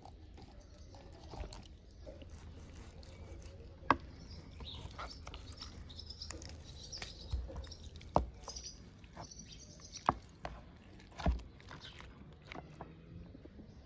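Outdoor ambience: small birds chirping off and on, with four sharp clicks or knocks, the loudest about four seconds in, over a low steady rumble.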